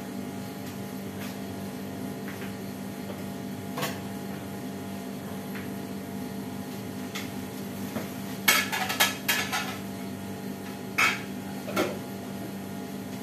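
Ceramic plates and dishes clinking and knocking together as they are handled and stacked for washing: one knock, then a quick cluster of clinks, then two more, over a steady electrical hum.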